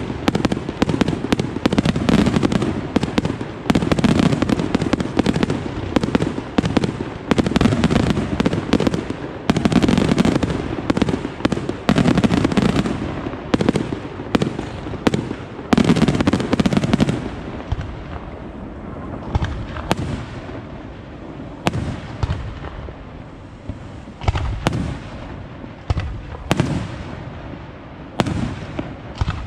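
Fireworks display: a dense, continuous barrage of shells and cake shots bursting in rapid succession, which thins a little past halfway to scattered single bangs with short gaps between them.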